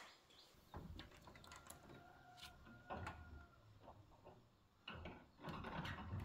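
Faint clicks, knocks and rattles of a wooden double door being shut and latched by hand.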